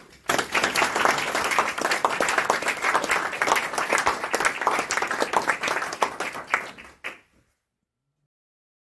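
A small audience applauding, many hands clapping together; the applause starts just after the start and stops about seven seconds in.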